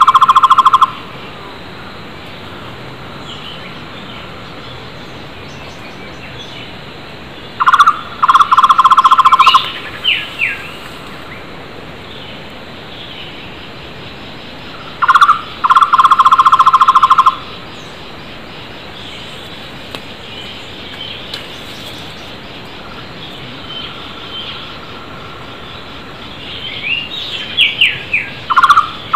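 Flame-fronted barbet (takur tohtor) calling in bouts every seven or eight seconds: each bout is a short note followed by a fast, even trill of low hollow notes lasting about a second and a half. Other wild birds call between the bouts with fainter, higher whistles and slurred notes.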